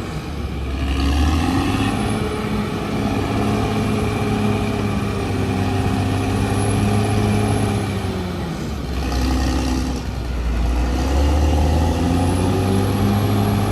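CAT D6R XL crawler bulldozer's diesel engine working under load. Its pitch drops about eight seconds in and climbs back up two or three seconds later.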